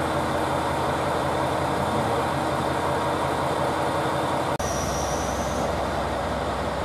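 JR Hokkaido KiHa 281 series diesel express train idling at a station platform, a steady engine hum under station noise. About four and a half seconds in the sound cuts to a second platform, where a high thin tone sounds for about a second.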